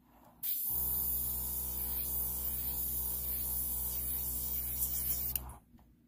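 Airbrush and its compressor running: a steady motor hum under a hiss of air from the airbrush. It starts about half a second in and cuts off shortly before the end.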